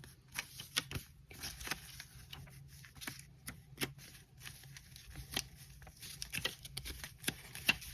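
Paper pages of a small handmade journal being turned and handled by hand: quick, irregular paper flicks and crinkles.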